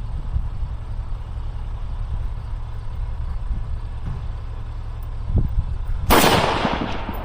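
A single rifle shot about six seconds in, a sharp crack that trails off over most of a second, over a steady low rumble.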